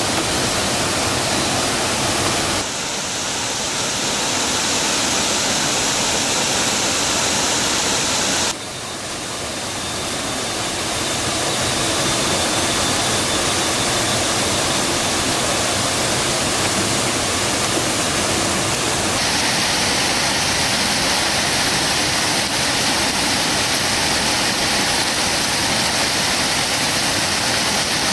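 Rushing water of a mountain stream or waterfall, a loud steady rush whose tone shifts abruptly a few times, about 3, 8 and 19 seconds in.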